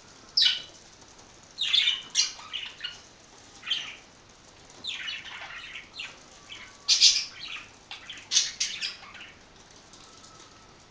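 Budgerigars giving a string of short, harsh chirps and squawks in bursts, falling quiet for the last second or so.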